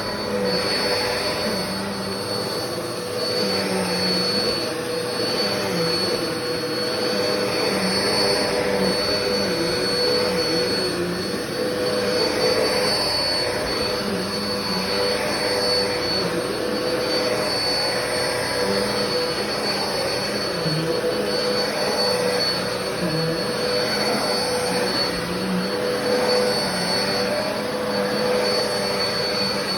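Black and Decker vacuum cleaner running steadily: a constant whine over rushing air noise, with a lower tone that wavers up and down throughout.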